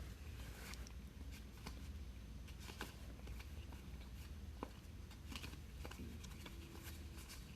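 Baseball trading cards being flipped through and slid against one another by hand: faint, scattered soft clicks and brief rustles over a low hum.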